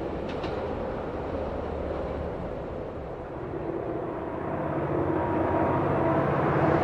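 Freight wagons rumbling past and fading, then a diesel locomotive engine working hard up the grade, with a steady pitched engine note growing louder as it approaches over the last few seconds.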